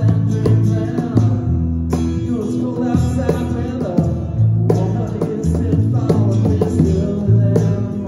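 A small band playing a country-style song live: electric bass, strummed acoustic guitar and a cajón struck in a steady beat, with a woman singing.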